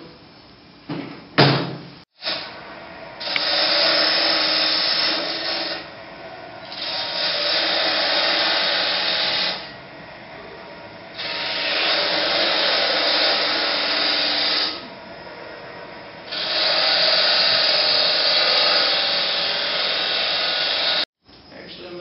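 Jet mini wood lathe running while a turning tool cuts a relief groove into a spinning wooden cylinder: four long cutting passes of a few seconds each, with the lathe's steady hum between them. A few sharp knocks about a second in.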